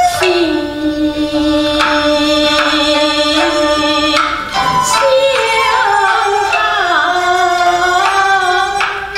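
Kunqu opera music: slow, long-held melody notes, with a voice and accompanying instruments, wavering and bending in pitch over the middle stretch. Sharp percussive clicks mark the beat a few times.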